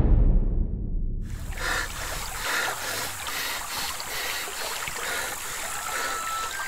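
The deep rumble of a heavy trailer impact hit dies away over the first two seconds, overlapped and then replaced by a steady rushing noise with soft, regular pulses.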